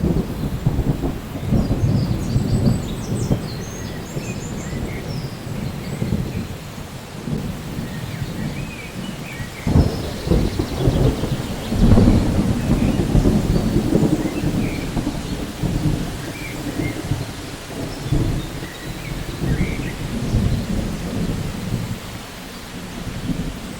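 Thunderstorm: steady rain with thunder rumbling throughout, a sharper crack about ten seconds in, and the rumble swelling loudest a couple of seconds later before easing off.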